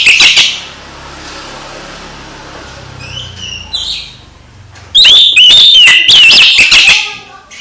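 Oriental magpie-robin (kacer) singing in loud, rapid whistled phrases. A burst ends just after the start, a few softer notes come three to four seconds in, and a second loud two-second burst begins about five seconds in.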